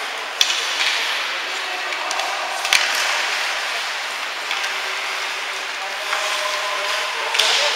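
Ice hockey rink during play: a steady hubbub of voices with several sharp knocks of sticks, puck and boards, the clearest near three seconds in and another near the end.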